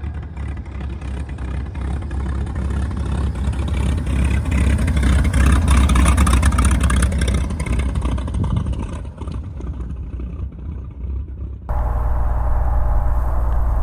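Cessna L-19 Bird Dog's six-cylinder Continental O-470 engine and fixed-pitch propeller running at low taxiing power as the plane rolls past, growing louder as it comes close around the middle. Near the end the sound changes abruptly to the steady, duller engine hum heard in the cockpit.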